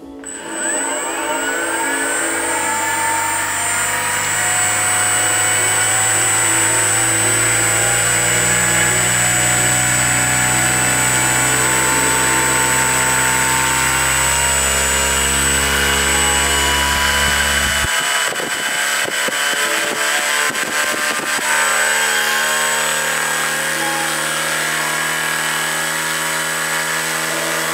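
Turnigy G-46 brushless outrunner motor driving a propeller on a thrust stand. It spins up with a rising whine over the first second or two, then runs steadily at speed with a prop drone and a high whine. About two-thirds of the way through, the low drone drops away and a few brief crackles follow, then it runs on with a changed tone.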